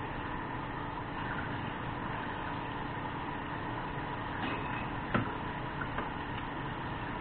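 Steady noise with a faint steady hum, and one sharp click about five seconds in followed by two fainter ones.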